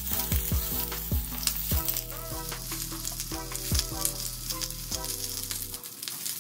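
Sweet Palermo pepper halves sizzling in hot oil in a cast-iron grill pan, a steady crackling hiss, under background music with a regular beat.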